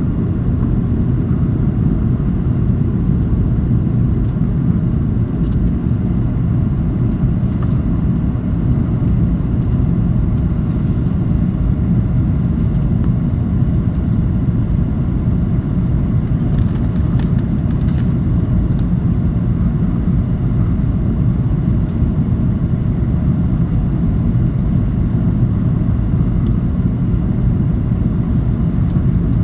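Passenger airliner in flight: a steady, unchanging low rumble of engines and airflow, with a faint steady hum underneath.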